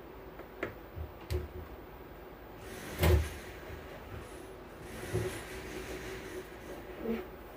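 Scattered knocks and clicks of tools and parts being handled during bench repair of an audio mixer, with one louder knock about three seconds in.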